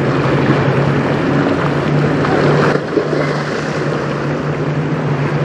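Wind rushing over the microphone and choppy river water, with a steady low engine hum underneath. The rushing eases slightly about three seconds in.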